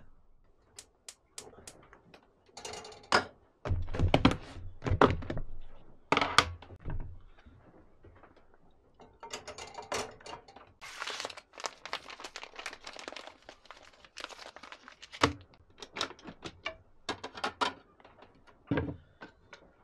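Cooking clatter in a small boat galley: a spatula knocking and scraping in a frying pan on the stove, with a few seconds of hiss around the middle as the food is stirred. Near the end, plates clunk as they are taken out of a wooden cupboard.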